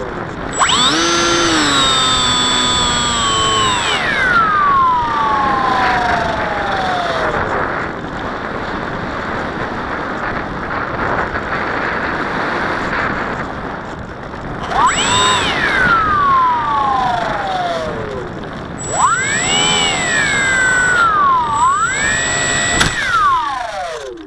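Brushless electric motor and propeller of a Multiplex Bixler 3 model plane, heard from the onboard camera over wind rush. The whine jumps up as the throttle opens and then glides slowly down, three surges in all. It cuts out as the plane touches down in the grass near the end.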